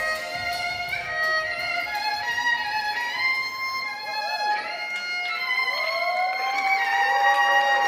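Violin playing a melody of quick notes, then sliding notes in the second half that rise into one long held note over the last two seconds.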